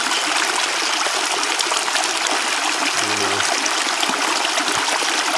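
Small creek running over rocks in a little cascade: a steady rush of water.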